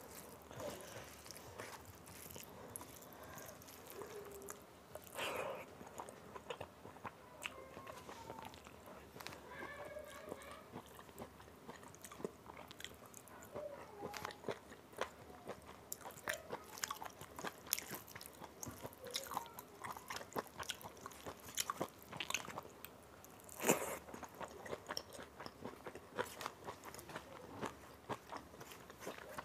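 Close-up eating sounds of rice and dal eaten by hand: chewing with frequent short, sharp wet mouth clicks and smacks, and fingers mixing rice into dal on a steel plate. One click about three-quarters of the way through is louder than the rest.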